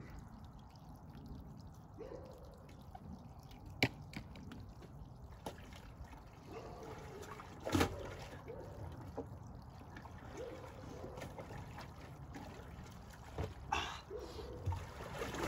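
Faint trickling and sloshing of soapy water in a barrel as a cowhide is washed in it, with two sharp knocks about four and eight seconds in.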